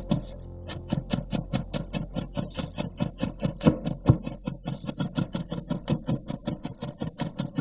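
Chef's knife mincing garlic on a wooden cutting board: rapid, even chopping strokes, about six a second, the blade knocking on the wood each time, with one harder strike about four seconds in.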